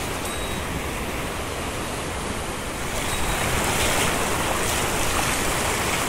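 Mountain stream water rushing steadily, growing louder about three seconds in.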